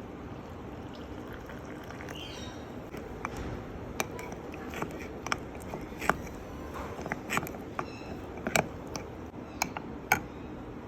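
Scattered light clinks and taps of a spoon against a mug, with some scraping, at irregular spacing over a steady low background hum.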